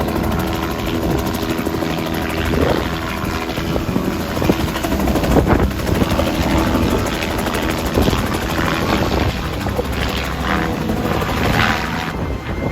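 Rescue helicopter running steadily overhead during an airlift, its rotor and engine a continuous drone.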